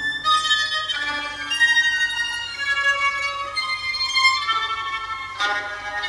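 Recorded string music played back: high sustained bowed notes, one sliding slowly down in pitch, with a sharper plucked-sounding entry about five seconds in.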